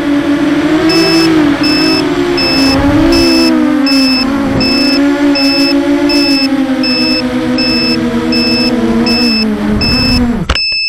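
FPV quadcopter's electric motors and propellers whining, the pitch wavering up and down with the throttle, as heard from the camera on the craft. A high beeper sounds over it about every three-quarters of a second, and near the end the motors cut off sharply, leaving only the beeps.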